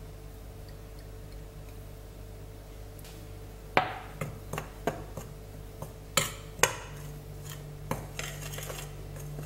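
A metal spoon clinking and knocking against a glass mixing bowl while flour is stirred, about eight sharp separate clinks starting a few seconds in. A steady low hum runs underneath.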